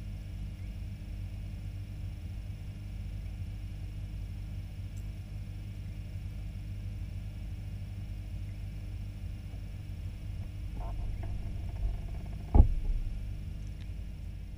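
Steady low hum of aquarium equipment such as a filter pump, picked up close to the tank, with a single sharp knock near the end.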